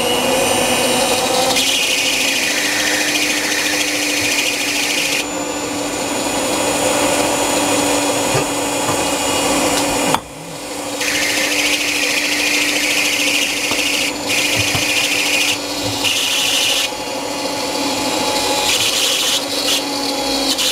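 Electric hand mixer on its stand running, its beaters creaming butter and ground sugar in a stainless steel bowl: a steady motor whine with the beaters churning. It cuts out briefly about halfway through, then picks back up to speed.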